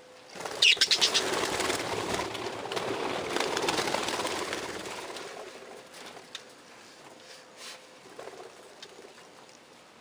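Budgerigars flapping their wings in a flurry, with sharp wingbeats near the start, then dying away over about four seconds.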